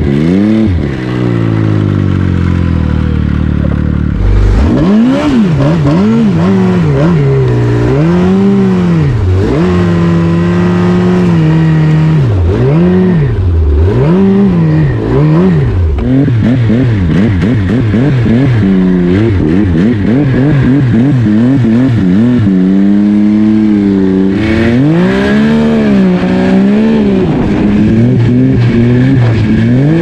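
Yamaha snowmobile engine, ridden under changing throttle. Its pitch winds down over the first few seconds, then rises and falls again and again, a second or two each time.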